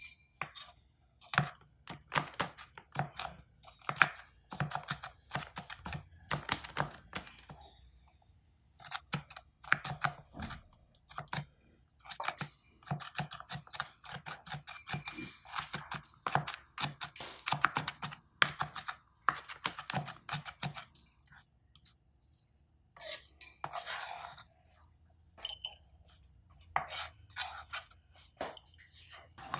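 Chef's knife chopping shallots on a plastic cutting board: rapid sharp knocks of the blade against the board, in runs with brief pauses. The knocks stop for a couple of seconds about three quarters of the way through, and scattered, softer sounds follow as the diced shallot is moved off the board.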